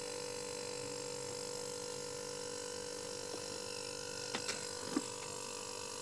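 A compressor running with a steady electrical hum while it pushes petrol through the freezer's refrigerant lines for flushing. A few light clicks are heard between about four and five seconds in.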